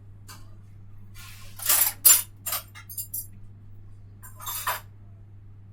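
A handful of short, noisy clattering and rustling sounds of objects being handled, the loudest about two seconds in and another cluster near the end, over a steady low hum.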